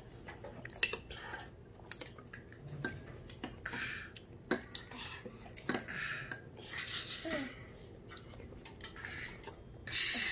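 Metal spoons and chopsticks clinking and scraping against ceramic bowls as children eat udon, in scattered light clicks, with several short slurps of noodles.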